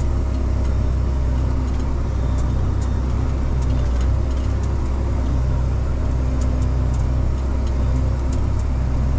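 Farm tractor engine running steadily as the tractor drives along, a constant low hum that holds one speed throughout.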